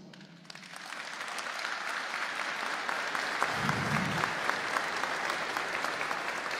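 A large audience applauding, the clapping swelling over the first couple of seconds and then holding steady.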